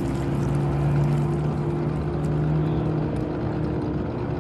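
Outboard motors of several bass boats running under way, a steady engine drone that eases slightly about three seconds in.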